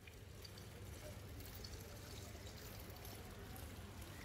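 Fountain water splashing and trickling, faint and steady.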